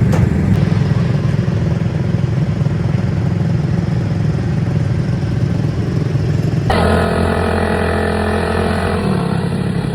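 Off-road buggy engines running. About seven seconds in, the sound changes abruptly to a steadier, more even engine note.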